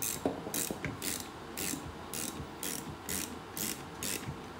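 Socket ratchet with a half-inch socket clicking in steady back-and-forth strokes, about two a second, as it turns in the bolt that holds a buffer tube to the lower.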